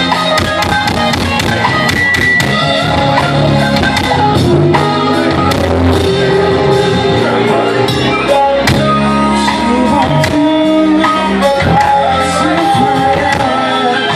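Live blues-rock band playing loudly: electric guitar over drums, with a male singer.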